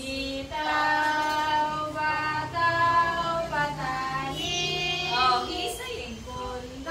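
A group of young children singing a song together in held notes, with a woman's voice singing along.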